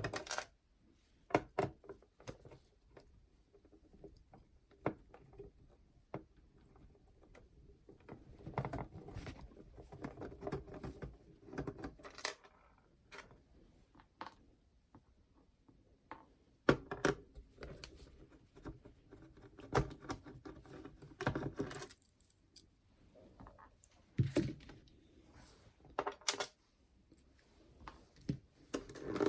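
Hands working on the plastic housing and small parts of a clock radio/cassette player as a part is removed: irregular clicks, knocks and short bursts of light rattling.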